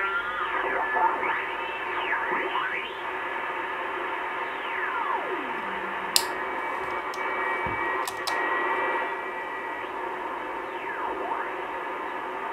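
Short-wave band of a Grundig Satellit 3400 Pro receiver being tuned between stations: steady static hiss with whistling tones that slide up and down in pitch as the dial moves, and a few sharp clicks about six and eight seconds in. The short-wave bands are working again after the drum band selector was cleaned.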